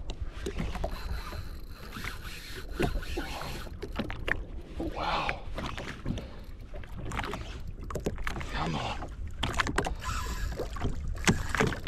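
Sea water lapping and slapping against the hull of a drifting jet ski, with wind rumbling on the microphone and scattered small knocks.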